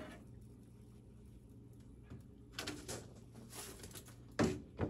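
Clattering and knocking of a metal smoker rack being handled, ending in two sharp knocks as it is set down.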